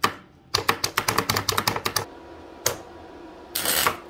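A sharp click, then a quick run of about a dozen sharp clicks and taps over a second and a half, one more click, and a short burst of rushing noise near the end.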